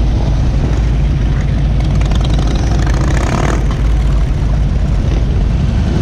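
Many motorcycle engines running together at low revs, a steady low engine sound, with one engine briefly louder around the middle.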